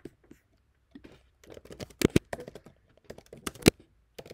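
Typing on a computer keyboard: a single click at the start, then an irregular run of quick key clicks from about a second and a half in to the end.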